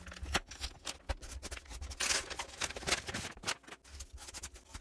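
Paper and cardboard packaging being handled and opened: a mailing envelope rustling, with a louder scraping rush about two seconds in as the cardboard mailer comes out. Near the end, a small plastic box cutter scrapes along packing tape on the cardboard.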